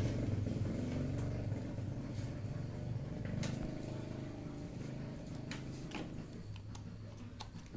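NRT-Pro 903HD mini grinder's motor humming and slowly dying away, with a few light clicks of the flexible-shaft handpiece being handled.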